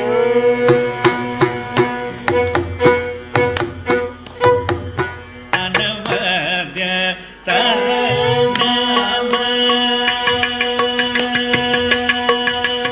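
Carnatic concert music: crisp mridangam and ghatam strokes over a steady drone, with a gliding melody line joining about five or six seconds in as the percussion carries on.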